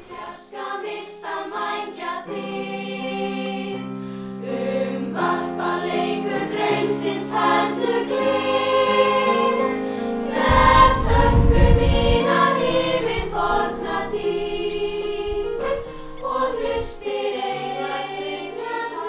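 A choir singing in harmony, several voices holding long notes together, with a brief low rumble about halfway through.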